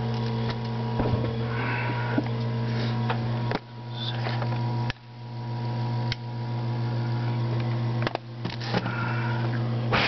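Small electric nebulizer compressor pump running with a steady hum, pushing cigar smoke into the sealed engine intake for a vacuum-leak smoke test. A few sharp knocks sound over it.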